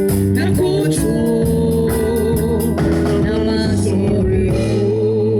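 Live band music led by an organ, with a singing voice, ending on a long held chord whose top note wavers with vibrato.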